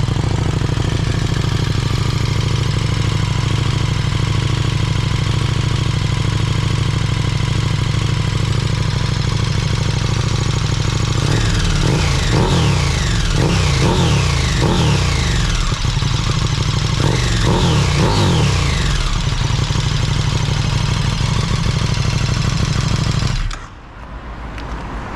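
KTM 1290 Super Duke R's V-twin engine breathing through a freshly fitted Austin Racing V3 250 slip-on silencer, idling while warming from a cold start. About halfway through it is revved in a series of quick throttle blips, each falling back, then it settles to idle and is switched off near the end.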